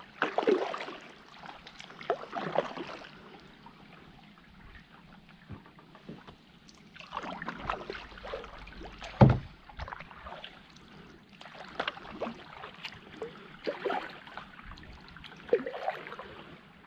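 Kayak paddle strokes: the blades dipping and pulling through calm water in irregular strokes a second or two apart. About nine seconds in comes one sharp knock, the loudest sound of all.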